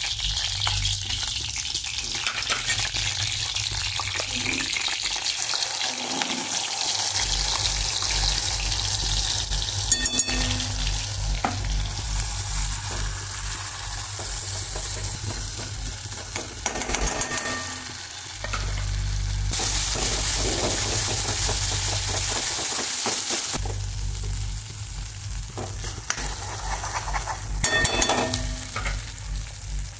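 Wet masala paste sizzling loudly in hot oil in a kadhai, stirred with a metal ladle that now and then scrapes and clinks against the pan.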